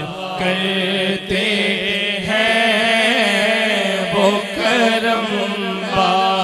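Naat recitation: a male reciter sings a long, winding melodic line into a microphone over a steady low vocal drone.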